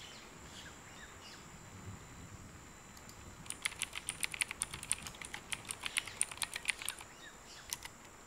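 Typing on a computer keyboard: a quick run of keystrokes begins about three and a half seconds in and lasts about three seconds, followed by a couple of single keystrokes near the end.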